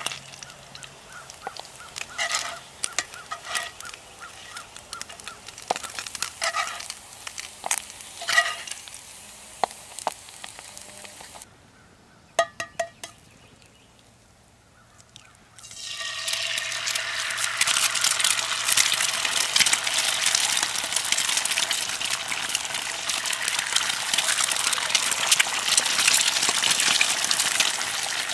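Eggs dropped into hot bacon fat in a cast iron skillet over a campfire start sizzling loudly about halfway through and keep up a steady hiss. Before that come a few clicks and short squeaks, then a brief quiet spell as the eggs are cracked.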